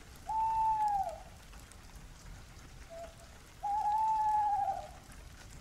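Steady rain ambience, with two long whistled calls about three seconds apart that stand out above it. Each call holds one pitch, then drops at the end.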